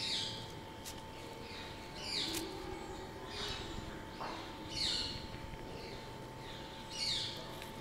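Short high chirping calls, each sweeping quickly downward, about five of them spaced one to two seconds apart, over a faint steady hum.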